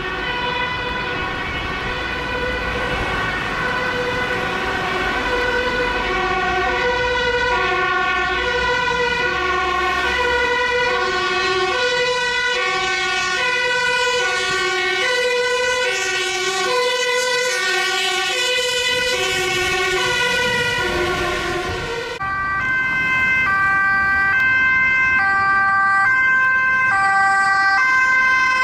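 Two-tone siren of a MAN fire engine passing, alternating between a high and a low note over engine rumble. About 22 seconds in there is a sudden cut to a Mercedes-Benz Sprinter ambulance's two-tone siren, which alternates faster.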